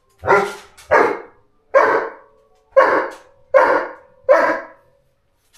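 Pet dog barking six times, about once a second, pestering to play.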